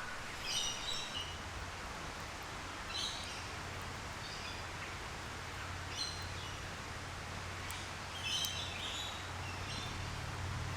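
Wild birds calling outdoors: short chirps in little clusters every second or two, over a steady low background hum.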